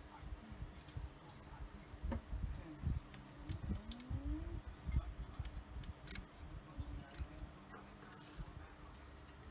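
Scattered light clicks and metallic clinks of a cockatiel clambering over a wire rack and pushing into laundry hung on a pinch hanger.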